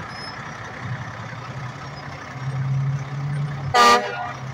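Dump truck's diesel engine idling with a steady low rumble that swells a little past the middle, then one short, loud horn toot near the end.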